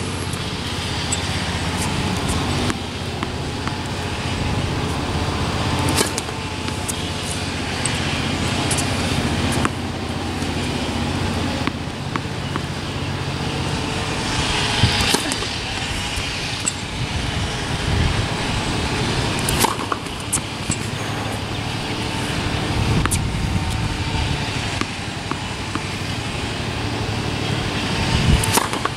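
Tennis serves on an outdoor hard court: a few sharp pops of the racket striking the ball at intervals of several seconds, the last near the end, over a steady background hum of road traffic.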